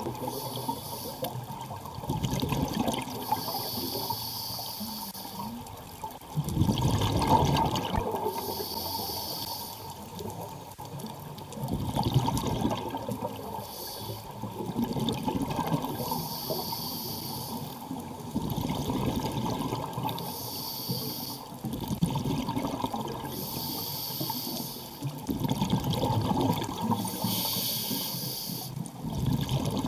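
Scuba diver breathing through a regulator underwater: a hissing inhale, then a gurgling rush of exhaled bubbles, about one breath every four to five seconds.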